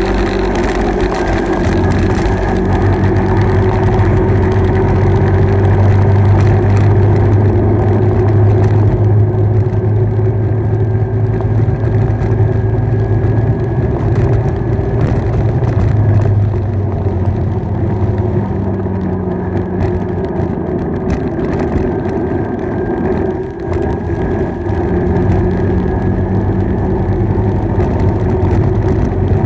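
Motorbike engine running steadily on the move, its pitch rising and falling gently with road speed, with road and wind noise underneath.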